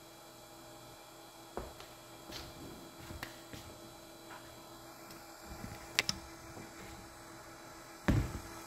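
A steady electrical hum with a few scattered sharp clicks and taps, and a heavier knock near the end.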